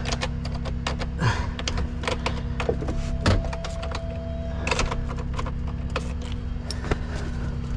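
A truck engine idling with a steady low hum, heard from inside a truck cab. Scattered clicks and light knocks come from the key and controls being handled.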